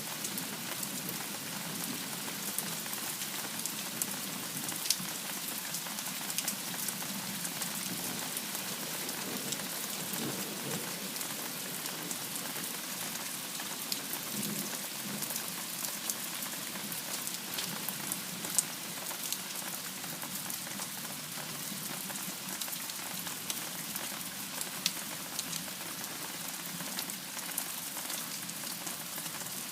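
Steady rain falling in a storm, with frequent sharp ticks of single drops striking.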